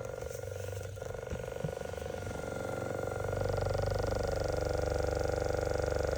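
Handheld massage gun running, its motor humming and its head hammering rapidly. It gets louder about three seconds in, and its pitch sags and then recovers near the end.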